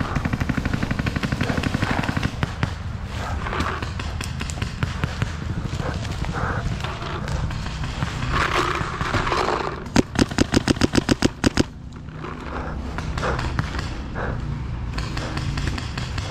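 Paintball markers firing. Distant crackling fire runs throughout, and about ten seconds in a nearby marker fires a rapid string of about ten shots.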